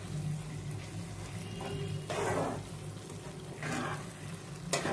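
Spatula stirring and scraping thick mushroom curry in a pan, with louder scraping strokes about two seconds in and again near four seconds. A short sharp tap comes just before the end, over a steady low hum.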